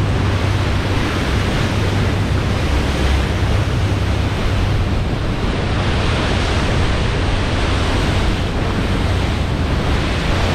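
Rushing, churning wake water thrown off a motor yacht's hull at speed, with wind buffeting the microphone; a steady, unbroken rush.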